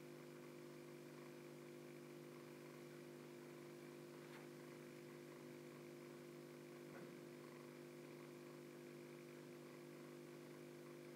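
Near silence with a faint steady hum from the small internal aquarium filter's motor, and two faint soft ticks about four and seven seconds in.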